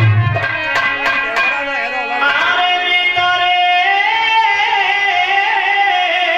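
Live folk devotional music: a male singer holds long, wavering notes over a harmonium, with a few sharp drum strokes in the first second and a half.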